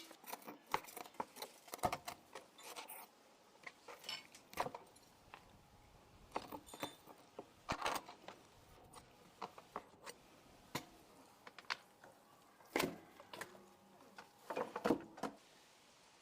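Light, scattered clinks, taps and clatter of kitchen items being handled while cooking prep begins, with a few louder knocks about halfway through and again near the end.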